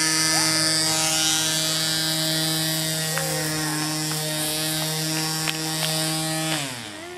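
A motor running at a steady pitch, then winding down with a falling tone and stopping near the end.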